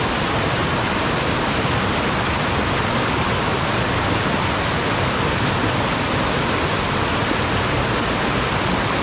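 Steady, unbroken rushing of water.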